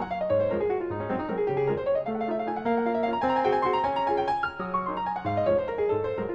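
Background piano music, with quick falling runs of notes.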